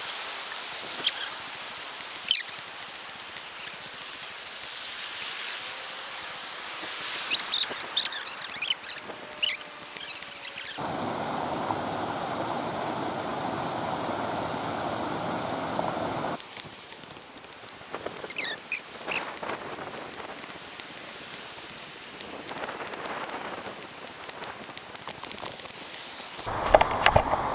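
Running creek water, a steady rushing hiss, with many sharp clicks and knocks mixed in. The sound changes abruptly a few times, about 11 and 16 seconds in and near the end.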